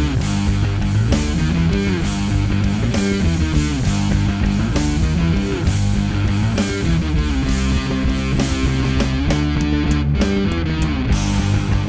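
Instrumental music with a steady beat, layered instrumental parts over electronic textures. The top end drops away briefly about ten seconds in.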